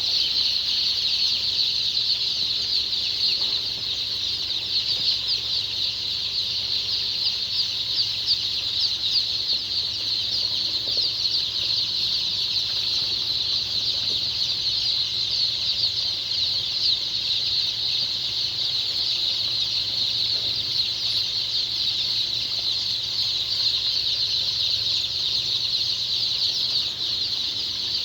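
A large brood of day-old chicks peeping continuously, many high-pitched chirps overlapping into a steady chorus.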